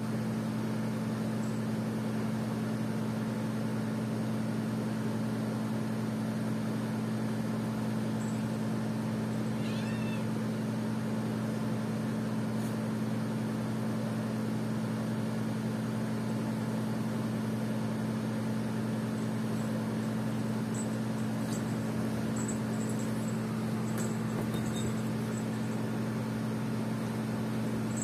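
Steady low hum at two fixed pitches, with a short high-pitched animal cry about ten seconds in and a few faint clicks in the later part.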